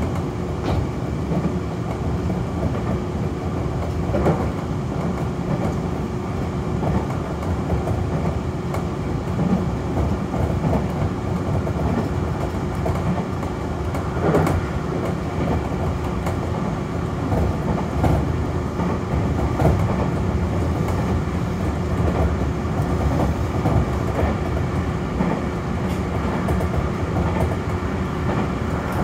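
Nankai Koya Line local train, set 6510F, running along the line between stations, heard from on board: a steady rumble of wheels on rail, with a few rail-joint clacks.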